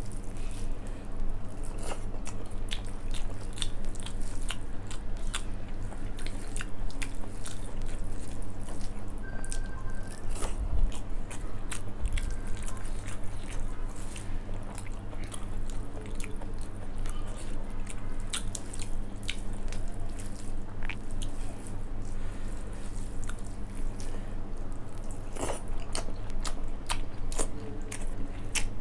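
Close-miked chewing and wet mouth clicks of a person eating rice with dal and soybean curry by hand, along with fingers squishing rice on a steel plate. A steady low hum runs underneath.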